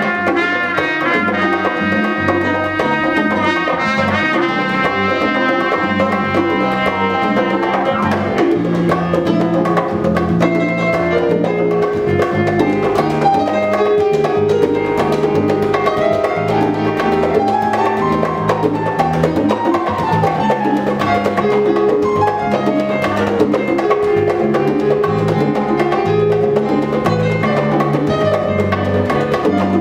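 Live Latin band playing salsa: a trumpet plays the melody over congas, bongos, piano and bass, then drops out after about eight seconds while the rhythm section carries on.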